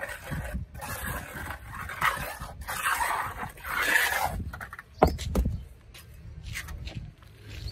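Steel trowel scraping and smoothing wet concrete in a mold, in a run of rasping strokes, followed by a sharp knock about five seconds in.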